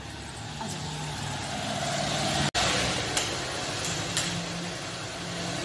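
A motorbike engine idling steadily, with a very brief dropout about two and a half seconds in.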